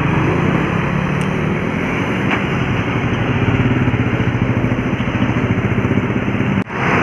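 A bus engine running close by with a steady low throb. The sound cuts out for a moment near the end.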